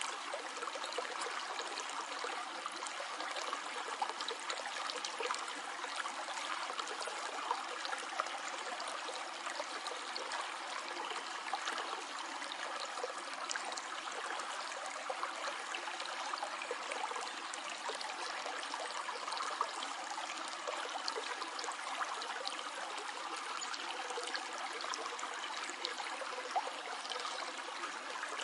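Small stream flowing over stones: a steady babble and trickle of water with many small splashes and gurgles.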